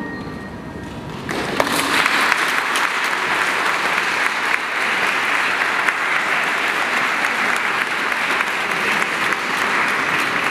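The last held note of a violin and piano fades out, and about a second in an audience breaks into steady applause.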